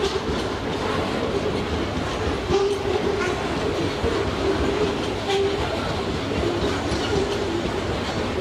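Loaded freight hopper wagons rolling past: a steady rumble of steel wheels on rail, with scattered clacks and short, repeated squeaks from the running gear.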